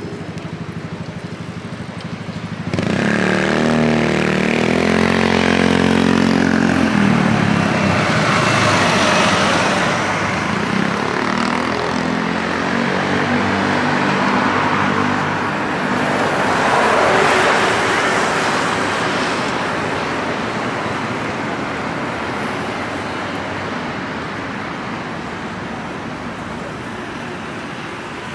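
Busy road traffic. A vehicle engine comes in loudly and suddenly about three seconds in, its pitch stepping down over several seconds as it goes by. Another vehicle swells past later, and the traffic fades slowly toward the end.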